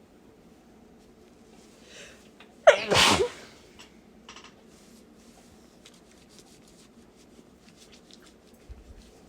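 A single strong human sneeze about three seconds in, preceded by a faint in-breath.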